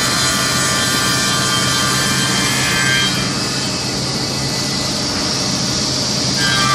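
A circular saw blade on a 5-axis CNC machining center's spindle spins with a steady high whine over a low machine hum. About three seconds in it cuts into the wooden panel, and the whine gives way to a hissing sawing noise for about three seconds before the whine returns near the end.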